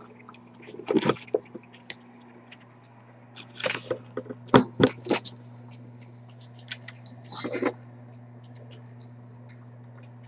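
Handling noise close to the webcam's microphone: clusters of knocks and scrapes about a second in, around four to five seconds in, and again about seven and a half seconds in, over a steady low hum.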